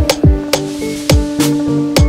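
Electronic background music with a steady beat: kick drums, snare hits and a held synth note.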